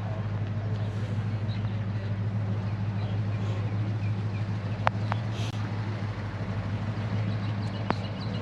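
A car engine idling steadily with a low, even hum. A few sharp clicks sound about five seconds in and again near the end.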